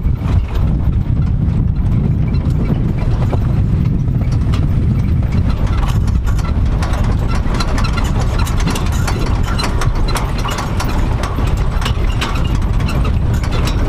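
Open-topped Maruti Gypsy safari jeep driving along a rough forest track: a steady low rumble of engine and road noise, with frequent small rattles and knocks, thicker from about halfway through.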